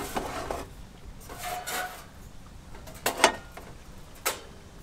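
Objects being handled: a brief scrape, then a few sharp knocks and clinks, the two loudest a little after three seconds and again about a second later, some leaving a short ring.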